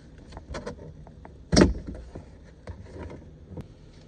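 A plastic interior trim panel pulled from the car body: a few small clicks and rattles, then one loud clunk about one and a half seconds in as it comes loose.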